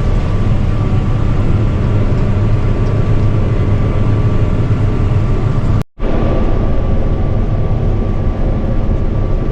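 Combine harvester running steadily while harvesting: a loud, even drone of engine and threshing machinery heard inside the cab, with a steady hum under it. The sound cuts out for a split second about six seconds in.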